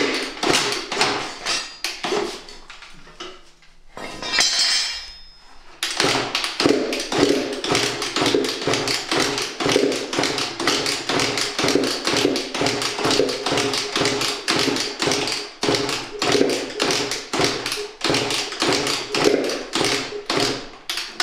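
Kawasaki KX100 two-stroke single being kick-started over and over, the engine turning over with a quick, even run of knocks, about four a second, without catching. A brief hiss comes about four seconds in.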